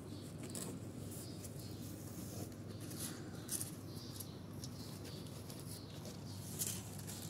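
Young kittens squirming and nursing against their mother on a cloth in a cardboard box: soft scratching and rustling with scattered short clicks, over a low steady rumble.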